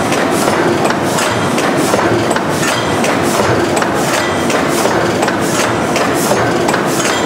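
Valve gear of a large multi-cylinder stationary gas engine running: a steady, evenly paced clatter of clicks from the rocker arms and valve lifters over the engine's low running noise.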